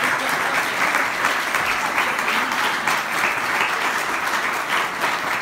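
An audience applauding steadily, many hands clapping at once.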